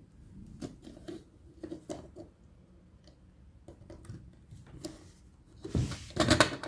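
Small plastic clicks and taps as the internal parts of a SteelSeries Rival 3 computer mouse are fitted back into place by hand, with a louder burst of clattering handling near the end.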